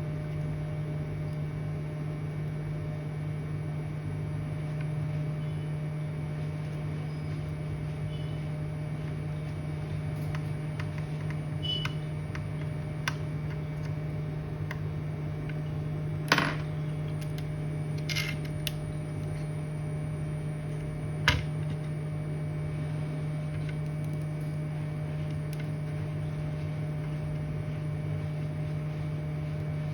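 Steady low electrical hum from the repair bench, with a few light clicks and taps of tools on the laptop motherboard a little past halfway through.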